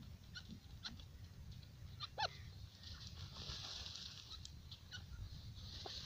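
Francolins dust-bathing in dry sand, with soft rustling spells of scattering sand as they flick it through their feathers. There are a few light ticks, and one short bird call comes about two seconds in.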